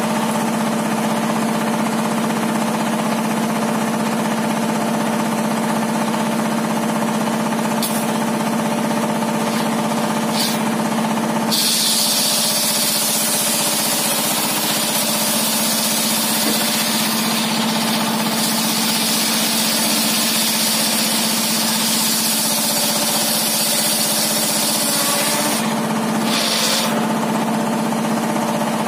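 Homemade circular-saw table running with a steady drone. From about a third of the way in until near the end, the blade cuts through a large wooden beam, adding a loud high-pitched hiss over the drone, with a second short cut just after.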